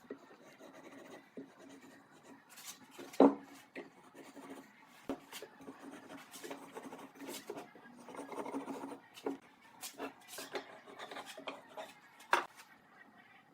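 Hand work on wood: irregular scraping and rubbing with scattered light taps, a sharp knock about three seconds in and another near the end.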